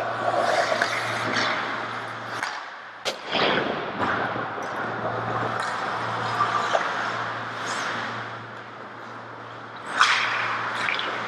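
Ice hockey play at the goal mouth: skate blades scraping the ice, and sticks and puck clacking, with a sharp crack about three seconds in and a louder hit about ten seconds in, echoing in the rink over a steady low hum.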